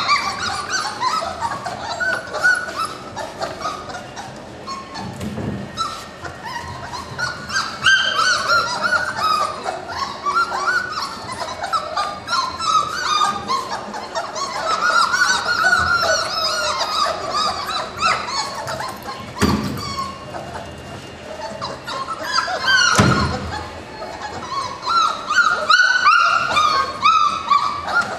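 A litter of four-week-old puppies whining and yelping over one another in high, overlapping calls, with a few dull knocks.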